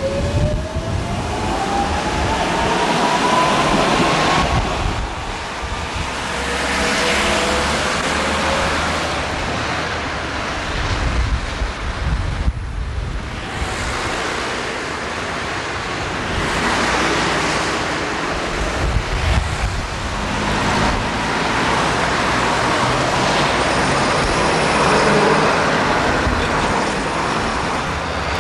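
Street traffic noise with wind rumbling on the camcorder microphone and cars swelling past. In the first few seconds a smooth rising whine is heard as the tram's electric motors accelerate away.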